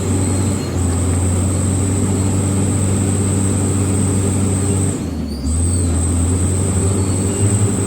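Diesel truck engine running hard under load as it struggles in mud, with a steady hum and a thin high whine on top. About five seconds in the engine note briefly drops, then comes back at a different pitch.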